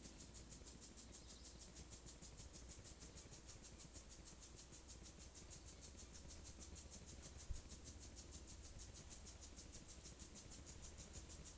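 Faint, fast, even high-pitched chirping of insects, steady throughout, with one soft tap about seven and a half seconds in.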